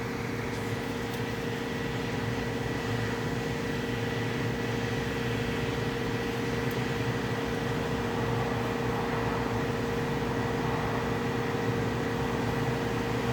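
Steady machine hum with a constant pitched drone, unchanging throughout.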